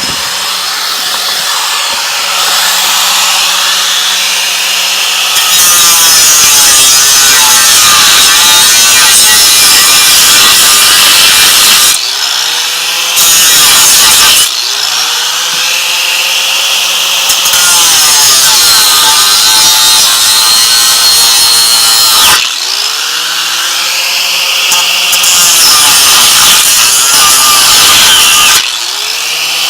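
Kawasaki 4.5-inch angle grinder cutting through steel bolts: three long stretches of loud, harsh grinding, with short spells between them where the disc eases off the metal and the motor's pitch swings.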